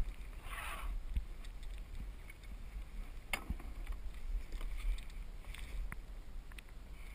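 Water splashing and lapping around a kayak, with low wind rumble on the microphone. There is a brief splash just under a second in and a sharp knock a little past three seconds.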